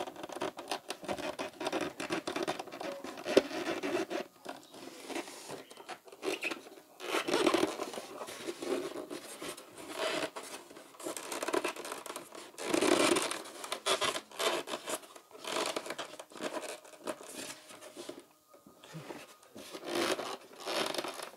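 Irregular scratching and rubbing as a plastic bulb holder is pushed and twisted into a hole in a polystyrene foam box wall.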